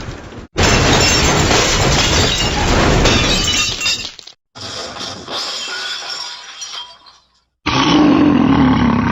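Cartoon sound effects played one after another, split by brief silences. First a loud crash of shattering glass lasting about three and a half seconds, then a quieter effect, then a loud sound with a strong low tone starting near the end.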